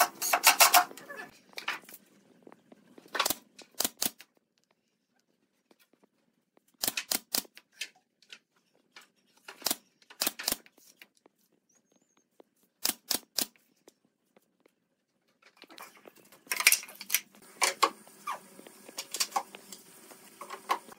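Woodworking assembly sounds. A cordless impact driver runs in a short burst at the start. A pneumatic nail gun then fires sharp shots in quick groups of two to four. Near the end, loose wooden slats knock and clatter as they are handled.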